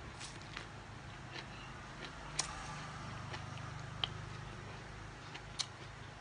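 A person chewing a mouthful of rice-noodle salad, with a few sharp clicks over a faint low hum.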